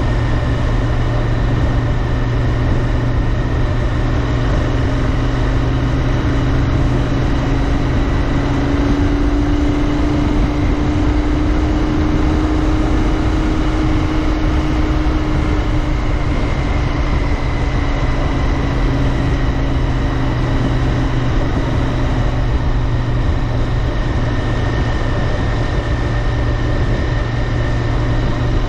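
Royal Enfield Interceptor 650's 648 cc parallel-twin engine running steadily under way, its note rising a little toward the middle and easing back, with wind noise on the microphone.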